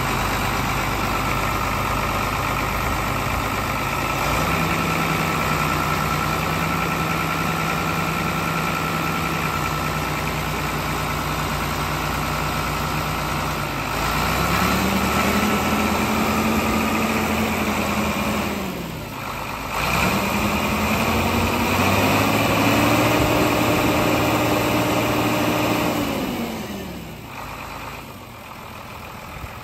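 John Deere tractor engine running under load, revved up twice and held, then throttled back each time, as it tries to drive its rear wheel up onto a log chained to the tyre to climb out of a mud hole.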